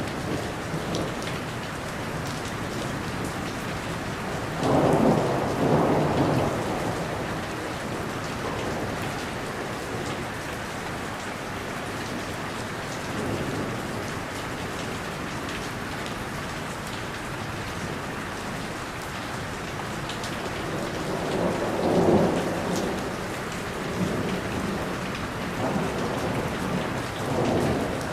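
Steady rain falling, with rumbles of thunder that swell up about five seconds in and again around twenty-two seconds, plus fainter rolls between.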